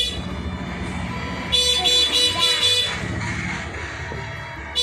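A high-pitched horn sounding in quick runs of short toots: about four toots around one and a half seconds in, and another run starting right at the end, over a steady low background hum.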